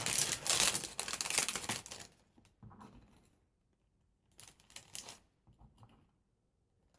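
Packaging crinkling and rustling as craft items are handled: a dense crackly rustle for the first two seconds, then a few fainter rustles midway through.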